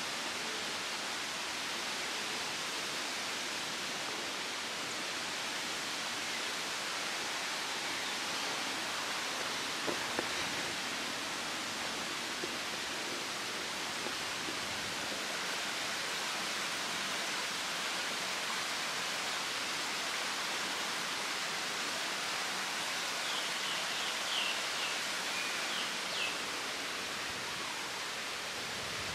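Steady, even rushing noise of outdoor ambience, with a couple of faint clicks about ten seconds in and a few short high chirps near the end.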